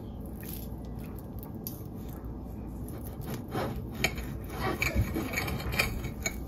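Knife and fork cutting through tender braised beef short ribs on a plate: soft scraping with a few light clicks of metal against the plate, mostly in the second half.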